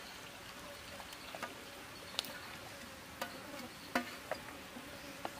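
Faint steady insect buzzing, with a scattering of light clicks and taps as sliced tomatoes are slid off a steel plate onto a metal platter of raw chicken.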